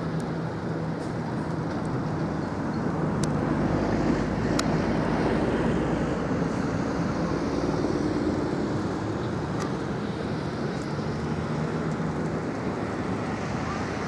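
Steady outdoor hum of distant road traffic, swelling a little in the middle, with a few faint clicks.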